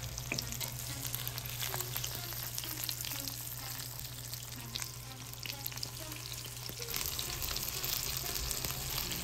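Egg-battered chicken cutlets frying in hot vegetable oil in a cast-iron skillet: a steady sizzle with a constant patter of small crackles and pops.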